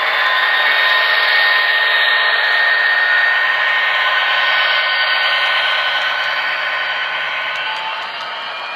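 HO-scale model coal train led by EMD SD80MAC locomotives rolling past close by: a steady whirring hiss of the models running on the track, a little quieter near the end.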